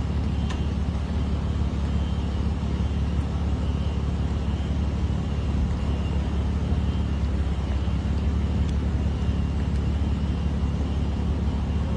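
A motor vehicle running with a steady low rumble, with a noisy hiss above it.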